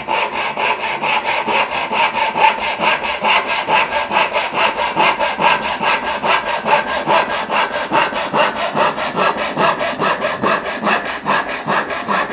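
A freshly hand-filed Disston backsaw cutting through a softwood board in quick, even strokes, about five a second. The newly sharpened teeth cut cleanly and smoothly.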